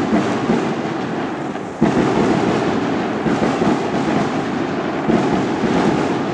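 A long string of firecrackers going off in a rapid, unbroken crackle, growing suddenly louder about two seconds in.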